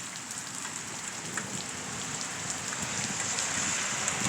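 Steady rain falling, with scattered drops ticking on nearby surfaces; it grows a little louder toward the end.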